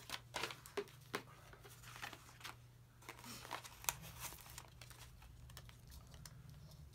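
Paper planner pages and sticker sheets being handled: light rustling and a scatter of soft clicks and ticks, busiest in the first few seconds, over a faint low steady hum.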